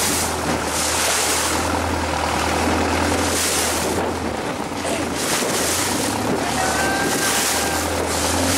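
Boat engine running with a steady low drone that dips briefly about halfway through and then picks up again, under gusts of wind on the microphone and the rush of sea water.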